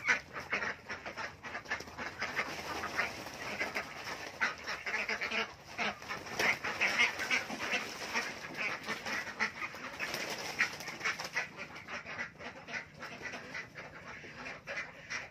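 A flock of young ducks quacking and splashing in a shallow plastic-lined pool, with wings flapping in the water. The busy clamour starts abruptly and eases off somewhat near the end.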